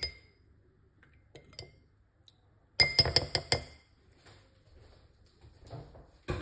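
Metal teaspoon clinking against a small glass bowl: a quick run of about six ringing taps lasting about a second, near the middle, with a few faint clicks before it. It is typical of tapping a spoon on the bowl's rim to shake it off after stirring.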